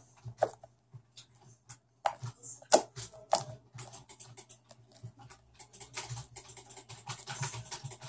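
Hands working a sticky homemade glue-and-borax slime: irregular small clicks and sticky pops, the loudest one a little under three seconds in.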